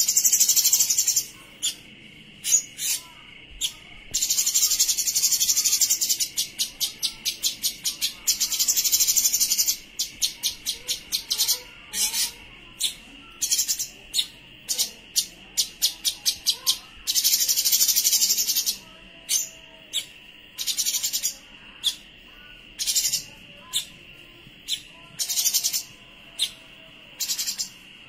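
Songbird singing in high-pitched bursts: rapid trills of a second or two alternate with short, sharp chirps. A steady high drone lies underneath.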